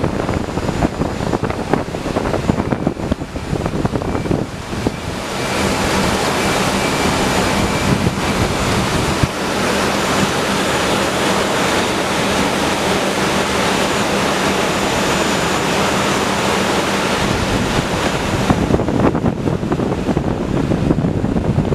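Conveyor line running with shrink-wrapped bottle packs on its rollers and chain: a steady, loud machinery noise with a faint hum under it. The noise grows louder about five seconds in and eases again near the end.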